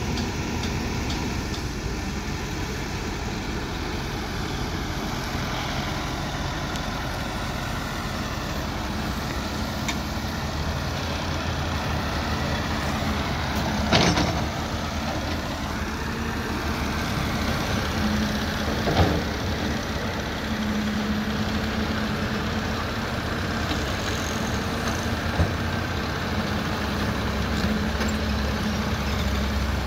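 Caterpillar tracked hydraulic excavator's diesel engine running steadily while it digs, with a couple of sharp knocks, the loudest about halfway through and again a few seconds later.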